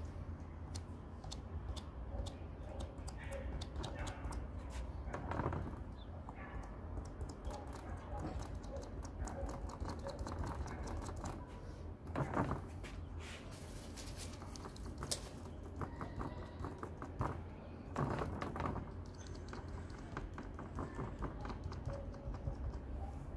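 Rapid light tapping as paint is dabbed onto a spray-paint painting with a small wad held in a gloved hand, texturing tree shapes. A few louder noises come about a quarter, half and three-quarters of the way through, over a steady low rumble.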